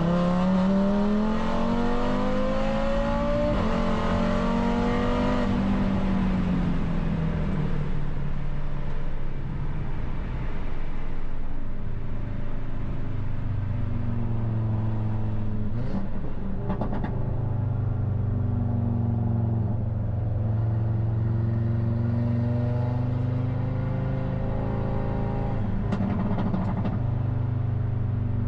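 Audi RS3 race car engine accelerating hard, its pitch climbing through a gear change in the first few seconds. It then drops to a lower, steadier note that swells and eases gently, with brief rattles about two-thirds of the way through and again near the end.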